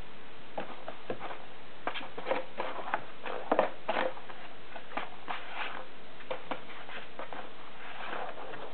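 Kitten's paw scratching and scrabbling inside an empty cardboard tissue box: an irregular run of light scrapes and clicks, loudest about three and a half seconds in.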